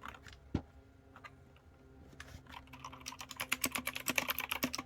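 Typing on a Matrix 65% mechanical keyboard with PBT keycaps. A few separate keystrokes come first, then a fast, continuous run of key clicks from about halfway through.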